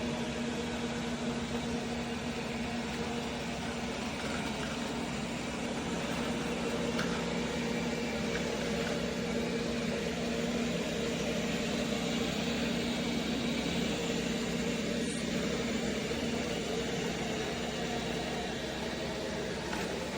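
Roborock S8 Pro Ultra robot vacuum-and-mop system running: a steady motor and fan hum with a hiss and a low, even drone.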